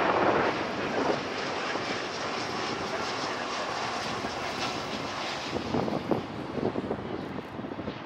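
Airbus A340-300's four CFM56 jet engines running at approach power as the airliner passes low and flares to land. The sound is loudest in the first half-second and then settles lower, with wind buffeting the microphone in gusts near the end.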